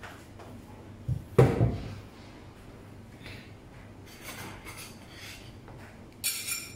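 A dull thump about a second and a half in, then near the end the bright, ringing clink of a ceramic plate and bowl being set down on a kitchen counter and hob.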